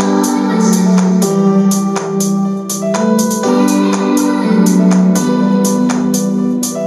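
Music played through Wharfedale speakers as a sound test: sustained organ-like keyboard chords over a steady beat of crisp high percussion hits about twice a second, with little deep bass.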